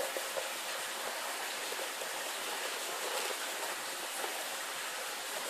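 Steady hiss of recording background noise, even throughout with no distinct events.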